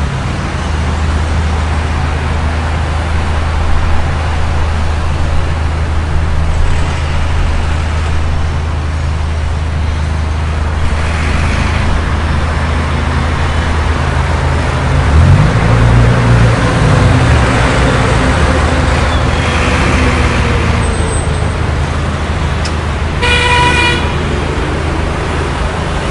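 City street traffic: a steady low hum of engines with road noise, swelling as vehicles pass about midway. A single short car horn honks near the end.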